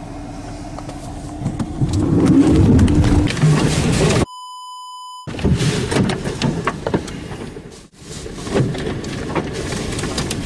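Wind and heavy rain beating on a truck during a tornado. About four seconds in, a steady high beep about a second long replaces all other sound: a censor bleep edited in over the audio.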